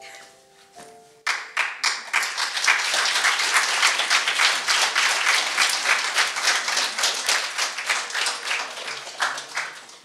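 A few held musical notes end about a second in, then an audience breaks into applause, dense clapping that carries on and fades toward the end.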